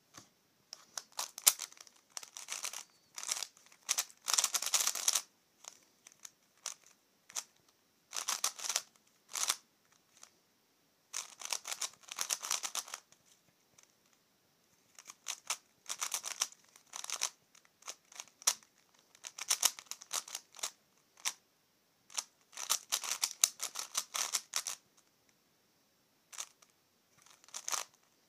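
Plastic layers of a C4Y 3x3x5 cuboid twisty puzzle clicking and rattling as they are turned quickly by hand. The turning comes in bursts of a second or two, broken by short pauses.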